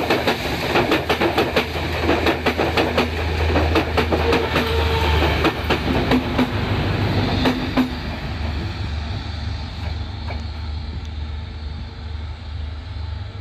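S13 diesel multiple unit moving through the station under braking: wheels clatter over the rail joints with brief squeals, then the clatter dies out about eight seconds in, leaving the power car's diesel engine droning low.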